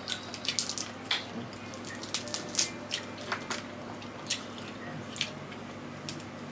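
Cooked mud crab being eaten by hand: irregular sharp, wet clicks and crackles of crab shell being picked and pulled apart, with chewing and sucking of the meat.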